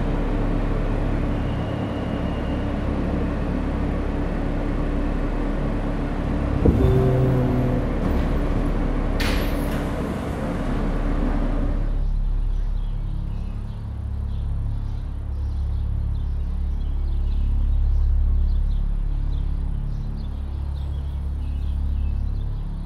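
Subway train running, heard from inside the car: a steady rumble with a held hum, a knock about seven seconds in and a short high hiss soon after. After about twelve seconds it gives way to a low outdoor rumble with crickets chirping faintly.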